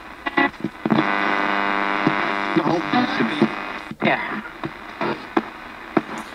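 Ghost box: a portable digital radio sweeping the AM band. About a second in, a steady buzzing hum holds for a second and a half, then breaks into short, chopped fragments of stations and static as the tuner jumps between frequencies.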